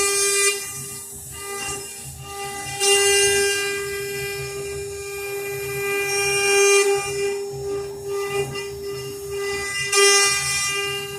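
CNC router spindle running with a steady high whine, while the cutting hiss swells and fades every few seconds as the bit works through the material.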